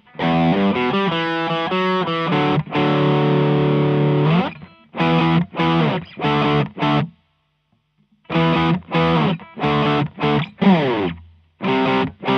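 Gibson Les Paul with humbuckers played through a Maxon OD808 overdrive pedal into a Fender Blues Deluxe amp, giving a mildly distorted tube-screamer tone. It plays a rhythmic run of chords, then a held chord that rings out. After choppy short chords and a pause of about a second, it plays short stabbed chords with downward slides.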